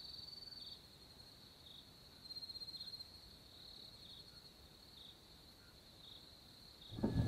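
Faint crickets chirping: a steady high trill that swells twice, with short chirps about once a second. A louder sound cuts in near the end.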